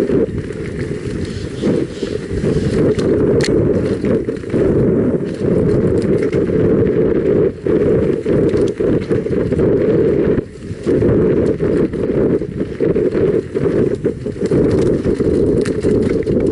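Mountain bike descending a dirt forest trail at speed: a loud, steady low rumble of wind buffeting the camera microphone and tyres on the ground, with frequent clattering knocks as the bike goes over bumps.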